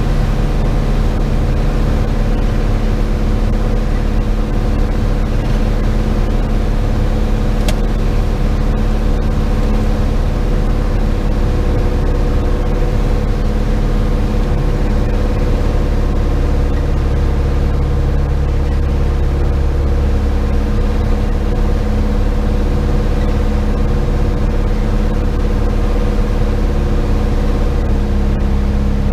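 Piper PA-28's single piston engine and propeller running steadily, heard inside the cockpit in cruise. A single click about eight seconds in.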